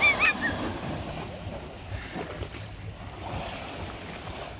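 Tidal river water surging over stone steps and washing across a flooded riverside path, with wind on the microphone. A burst of high-pitched squeals dies away about half a second in.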